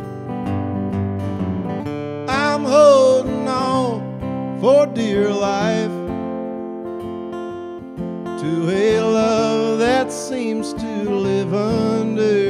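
Acoustic guitar played steadily, with a man singing over it in two phrases: one from about two seconds in, the other from about eight seconds.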